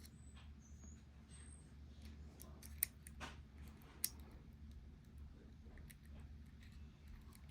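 Faint, scattered small metallic clicks and ticks from handling small lock parts and tools, with two sharper clicks near the middle, over a steady low hum.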